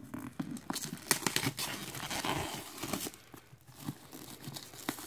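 Plastic shrink-wrap being torn and peeled off a sealed vinyl record box set: irregular crinkling and crackling, with a short lull about three and a half seconds in.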